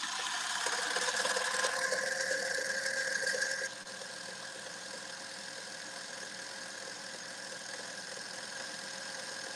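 Small benchtop metal lathe running steadily in reverse, spinning an RC car tire, with a steady whine. About four seconds in it drops in level and loses much of its higher hiss.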